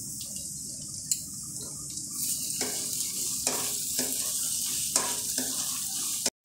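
Chopped onions sizzling in hot mustard oil in a metal kadai, with a steady frying hiss. From about two seconds in, a wooden spatula scrapes and stirs against the pan in repeated strokes.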